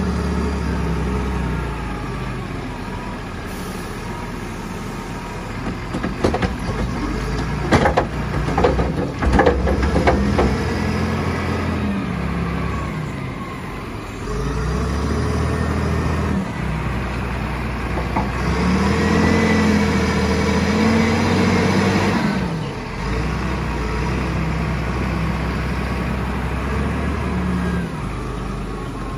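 Wheel loader's diesel engine running and revving up and down as it works. A cluster of sharp knocks and clatters comes about six to ten seconds in, as the bucket dumps topsoil into the truck's steel container.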